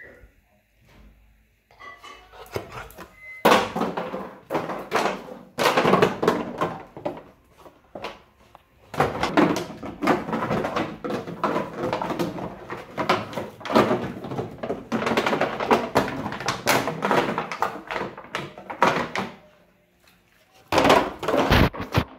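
Black Labrador puppy playing with a toy on a tiled floor: rapid, irregular knocking, clattering and scraping as the toy is batted and pushed about. This runs in long busy stretches with short pauses, after a quiet first few seconds.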